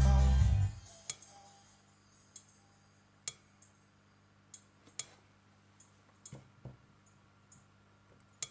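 Music from a smartphone plays loudly for under a second and cuts off abruptly, followed by a few scattered light clicks and taps from handling, over a faint steady hum.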